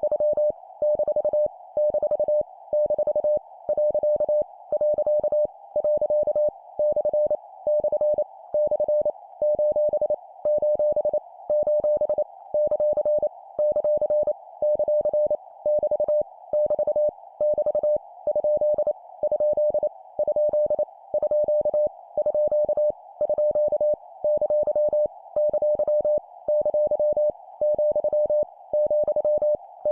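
Morse code (CW) practice sent at 25 words per minute: a single steady tone keyed on and off in quick dots and dashes, with punctuation marks each sent three times. A steady band of hiss runs under the tone, like a receiver's passband noise.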